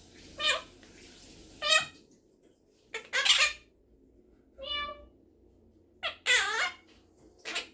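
Quaker parrot imitating a cat's meow: about six short meow-like calls, one after another with pauses between.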